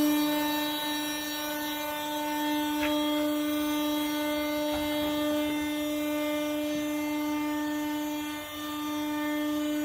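Hydraulic power unit of an HSM 820 Plus vertical baler running, a steady whine with a few faint ticks.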